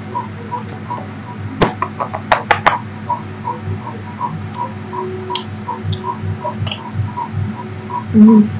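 Steady electrical hum with a regular pulse of about three to four beats a second. About a second and a half in comes a sharp clink, then a quick run of three or four more, from a steel bowl and steel plates knocking together.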